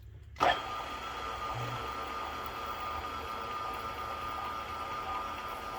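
Milling machine spindle switched on about half a second in, then running steadily in back gear with a constant whine as it power-taps a thread into a blind stud hole.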